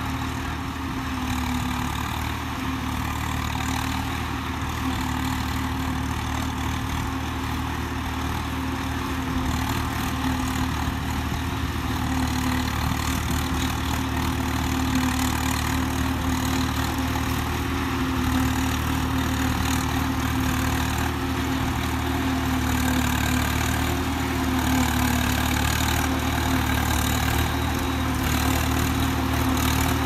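Swaraj 855 tractor's three-cylinder diesel engine working under load as it drives a Shaktiman silage harvester chopping standing maize. It makes a continuous steady drone with a constant hum, mixed with the engine of the tractor hauling the silage trailer alongside, growing slowly louder as the rig approaches.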